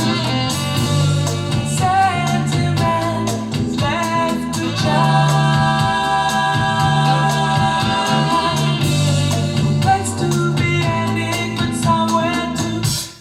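A song with a sung vocal over guitar and steady bass, played through the Dreame S100 TV's built-in speakers.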